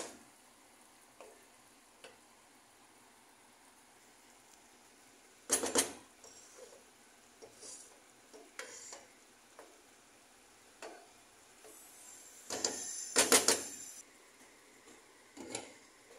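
Wooden spatula stirring and scraping ground pork and onions in a nonstick frying pan: scattered light taps over a faint sizzle, with louder clattering scrapes about five and a half seconds in and again around thirteen seconds. A glass pan lid is set down near the end.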